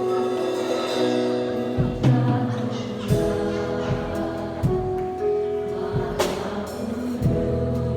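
Gospel-style church music: sustained keyboard chords, joined about two seconds in by low drum beats, with a cymbal crash a little past the middle.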